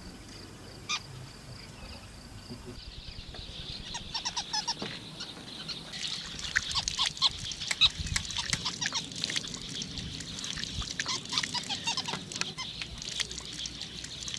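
Water running from an outdoor standpipe tap and splashing into cupped hands and onto the ground, with birds chattering and calling. A steady high-pitched whine fills the first few seconds, then stops.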